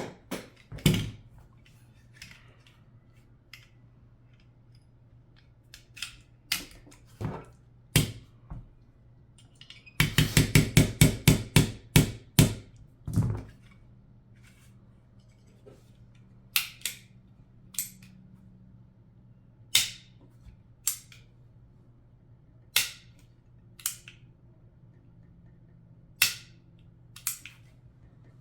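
Sharp metallic clicks and clacks of a Glock pistol's parts being handled and worked during a trigger swap. About ten seconds in there is a rapid run of about a dozen clicks, about four a second. After that come single and paired clicks every second or two.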